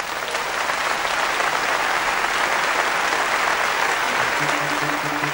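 Concert audience applauding steadily. About four seconds in, music starts under the applause with a run of short repeated notes.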